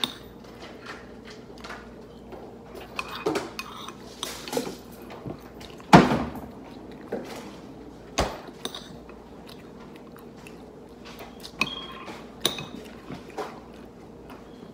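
Metal eating utensil clinking and scraping against a bowl in scattered, irregular strokes while eating. The loudest is a sharp knock about six seconds in, with another about two seconds later.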